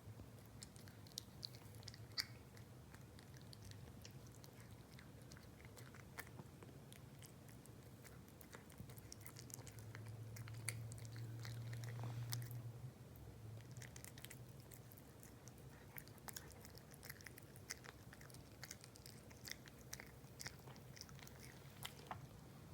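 Cat chewing food, a run of faint, irregular crunching clicks, over a low steady hum that grows louder for a few seconds midway.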